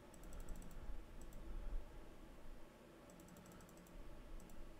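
Computer mouse clicking in quick runs, about eight rapid clicks at the start, a few more around a second in, another quick run past the three-second mark and a couple near the end.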